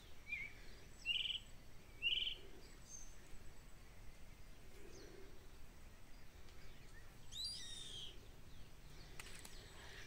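A bird of prey calling: two short calls, one about a second in and one about two seconds in. Fainter chirping calls follow near the end, over a quiet rural background.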